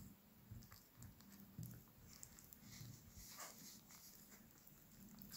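Faint, soft rustling of a hand working flour into wet ingredients in a glass bowl, mixing bread dough.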